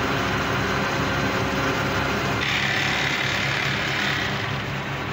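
Electric machinery running steadily, a continuous mechanical drone with a fast low repeating beat; about two and a half seconds in a higher hiss joins it.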